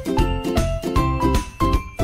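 Background music: a melody of short pitched notes over a steady beat.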